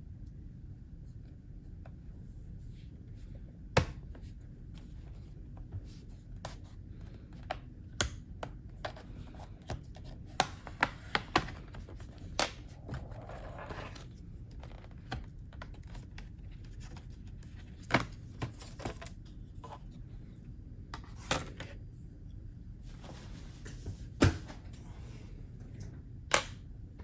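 Scattered sharp clicks and taps from tools and small parts being handled on a laptop, with a brief scraping sound about halfway through.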